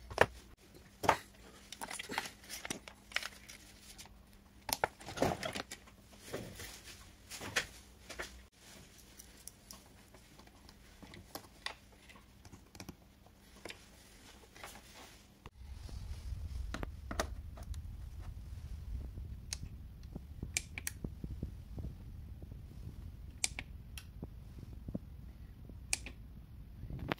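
Scattered clicks, taps and rustles of handling, with a faint steady hum underneath. A low rumble sets in about halfway through, with fewer, lighter clicks over it.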